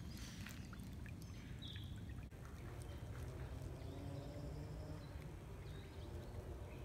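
Shallow floodwater running over a stony bed, a faint steady wash with a few small clicks. About two seconds in the sound dips briefly, and a similar faint low background carries on, with a couple of short high chirps.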